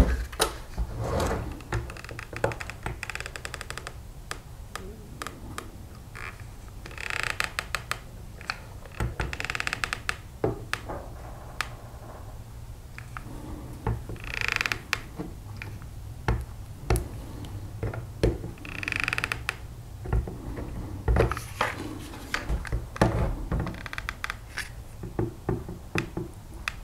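Scattered plastic clicks and taps with several short scrapes, each about a second long, from the handle and trigger button of a cordless leaf blower being worked on by hand. The blower's motor is not running.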